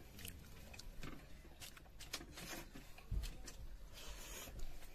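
Eating sounds: fingers working noodles on the plates, lips smacking and noodles being slurped, with scattered small clicks. A low thump comes about three seconds in, and a brief slurp-like hiss about a second later.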